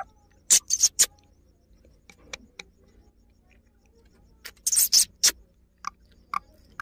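Sharp beak clicks and taps from an Indian ringneck parakeet at its nest-box hole: three clicks about half a second in, a quick rattling cluster near five seconds, then single clicks near the end.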